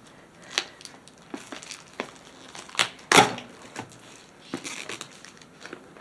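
Shrink-wrapped cardboard box being handled and turned over on a wooden table: irregular crinkles of the plastic wrap and light knocks, the loudest about three seconds in.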